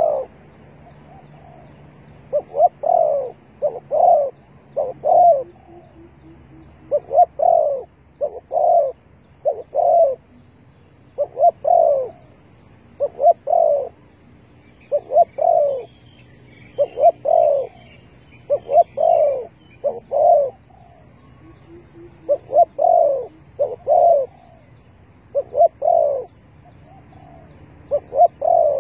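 Spotted dove cooing, its call repeated phrase after phrase in groups of two or three low notes. Faint high chirps of small birds are heard about halfway through.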